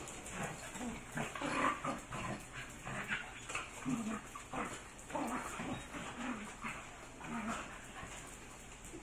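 Three young dogs play-wrestling: a string of short, irregular dog sounds, brief low grumbles with whimpers and yips, over quick clicks of claws and scuffling on a tile floor.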